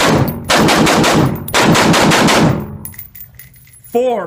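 Rifle fired in fast strings of shots during a timed drill, echoing in an indoor range; the firing stops about two and a half seconds in. A short voice follows near the end.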